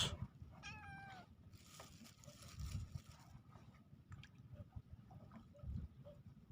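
A cat meowing once, briefly and wavering in pitch, about a second in. Otherwise only a faint low rumble and a few small clicks.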